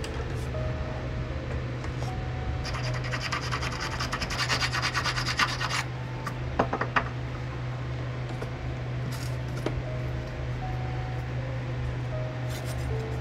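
Hand file rasping on the wooden handle block for a Japanese kitchen knife, with fast scratching strokes for about three seconds in the middle, then a couple of light knocks and a few quieter scrapes. A steady low hum runs underneath.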